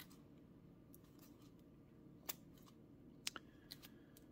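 Faint clicks and slides of plastic-sleeved trading cards being flipped one at a time from one stack to another, over near silence. The clearest clicks come a little past two seconds in and again around three seconds in.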